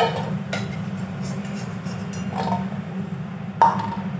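Metal spatula clinking against an aluminium kadai as fried potatoes are lifted out of the oil: a few short, ringing knocks, the loudest about three and a half seconds in, over a steady low hum.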